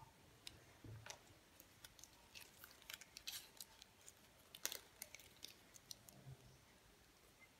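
Faint, irregular crinkling and crackling of a small folded paper sticker sheet being unfolded by hand.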